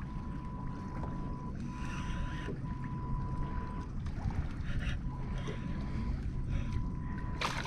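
Wind on the microphone and water around a kayak, with a faint steady high tone that cuts in and out several times and a few light clicks; a sharp noise near the end is the loudest thing.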